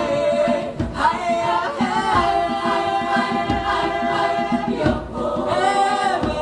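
A choir singing a cappella in sustained chords, the voices briefly breaking and re-entering about one, two and five seconds in.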